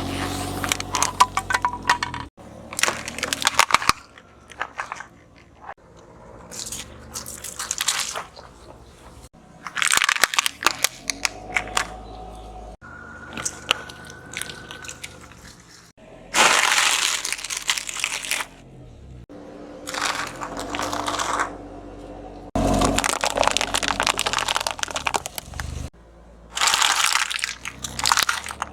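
Objects crunching, cracking and crinkling as they are crushed under a car tyre, in about eight separate bursts of dense crackles, with a low hum underneath.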